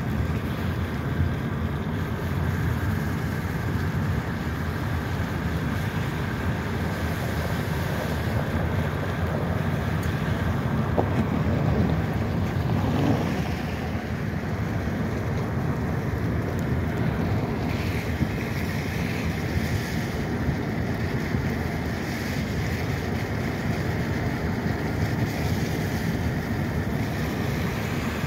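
Steady road and wind noise of a moving car, heard from inside the cabin: tyre rumble with a rushing hiss over it, with no clear change throughout.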